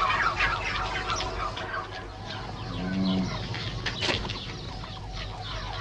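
A flock of domestic turkeys calling, with many short overlapping calls, and one sharp click about four seconds in.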